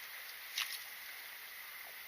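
Mountain stream running with a steady hiss, and a single short, sharp click about half a second in.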